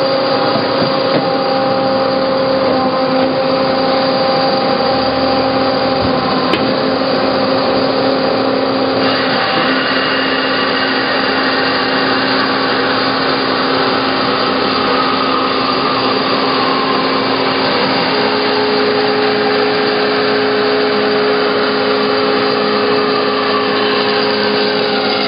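Hyd-Mech H-16 automatic horizontal bandsaw running under its hydraulics, its band blade cutting through bar stock in an automatic cycle. It is a loud, steady machine hum with several tones. The sound shifts about a third of the way in, and a higher steady tone joins a little past halfway.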